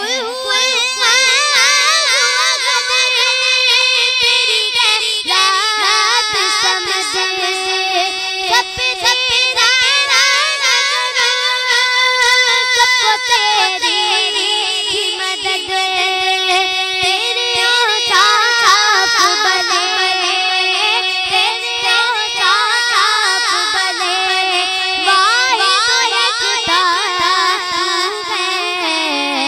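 A young girl sings a hamd, an Urdu devotional song praising God, into a microphone. She holds long, wavering notes that bend up and down in pitch.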